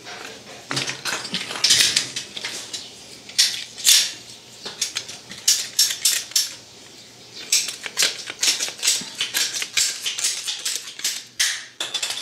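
A PVC water pipe being cut by hand with a ratchet pipe cutter: a long run of short, irregular sharp rasping and clicking strokes.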